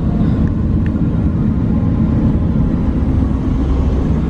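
Steady low road rumble of a moving taxi, heard from inside the car's cabin.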